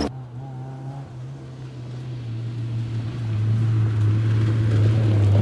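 Land Rover Freelander rally car's engine drone, steady in pitch and growing louder as the car approaches.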